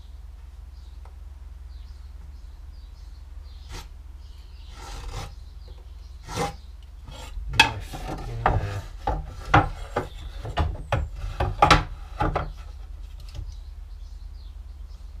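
Steel marking knife scraping across a pine board along a square, a quick run of short scoring strokes starting about four seconds in and thickest in the middle, broken by a few sharp knocks as the square and board are handled on the bench.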